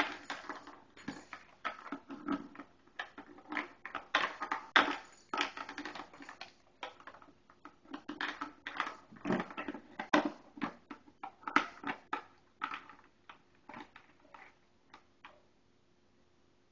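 A dog licking and crunching ice cubes in its bowl, with irregular clicks, clatters and crunches that thin out over the last few seconds.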